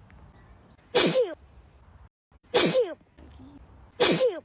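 A young woman sneezing three times in a row, about a second and a half apart, in a sneezing fit. Each sneeze is a short, loud 'achoo' that falls in pitch.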